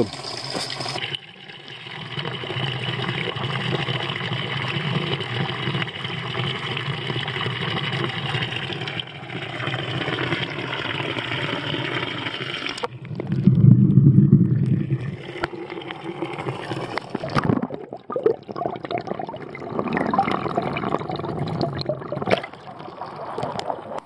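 Water running from a village fountain spout into bottles being filled: a steady pour that cuts off suddenly about halfway through. A brief loud low rumble follows, then scattered knocks and handling with more intermittent running water.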